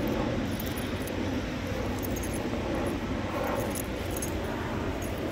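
Small metal jingling from a corgi puppy's collar and leash clip as it roots nose-down in snow, in several short clinks, over a steady low rumble.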